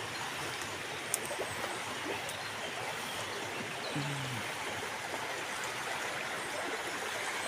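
Steady rushing of a small stream.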